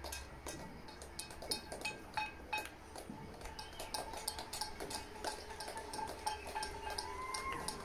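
Scattered hand clapping from many people, mixed with the clink and clatter of pots and pans being banged, as a continuous patter of sharp irregular claps and clinks. A few held tones sound through it, one rising slightly near the end.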